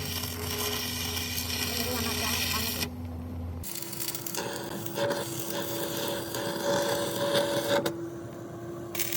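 Workshop machinery running: a steady hum with a hiss over it, changing suddenly a few times.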